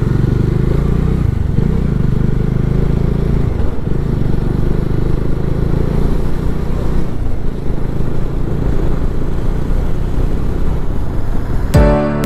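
Bajaj Dominar 400's single-cylinder engine running steadily as the motorcycle is ridden. Background music comes in near the end.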